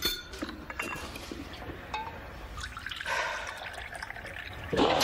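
Tea poured from a metal pot into a mug, with a trickle of liquid and light clinks of crockery. Loud music comes in near the end.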